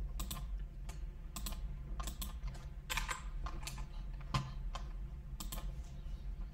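Typing on a computer keyboard: irregular keystrokes spaced out, with one sharper clack about four and a half seconds in.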